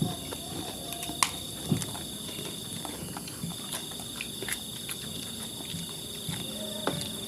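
Scattered small clicks and soft knocks of a meal being eaten, chewing and utensils on dishes, over a steady high trill of crickets that breaks off and resumes.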